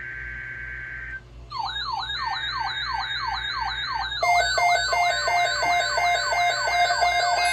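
Electronic emergency alert tones. A steady high tone cuts off about a second in. Then a synthetic siren sweeps downward over and over, about three times a second, with a faster warble above it. About four seconds in, a pulsing lower tone and more layered tones join, and the whole thing grows louder.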